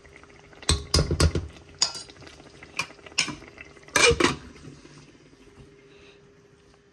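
Metal ladle scraping and knocking against a metal cooking pot as curry is stirred, then a lid clanking down onto the pot about four seconds in, the loudest knock. A faint steady hum follows.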